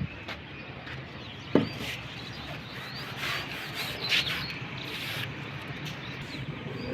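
Rubbing and scraping strokes on a hard surface, with one sharp knock about a second and a half in.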